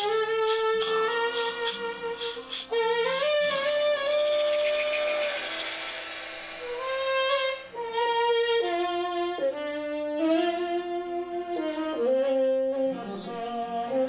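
Tenor saxophone playing a slow, soulful melody of long held notes with slides between them, backed by acoustic guitar and drums. A cymbal wash swells up about four seconds in.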